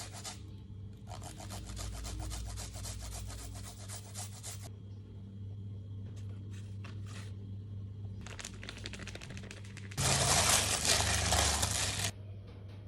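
Quick repeated knife strokes on a wooden cutting board, then a few more scattered strokes. About ten seconds in, a loud hiss lasts about two seconds. A low steady hum runs underneath.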